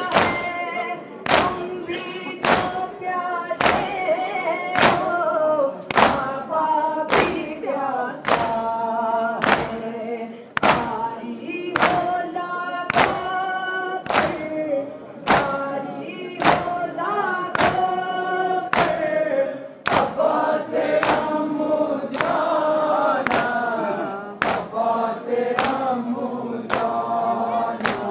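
A crowd of male mourners chanting a noha in unison, with sharp, evenly spaced matam (hand-on-chest beating) strokes nearly twice a second keeping the rhythm.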